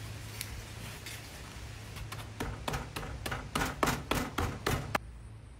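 Thick raw bone-in ribeye steak dabbed edge-down again and again onto a cutting board spread with seasoning, coating its sides in the rub. A quick run of about a dozen soft slaps starts about two seconds in, grows louder and stops about five seconds in.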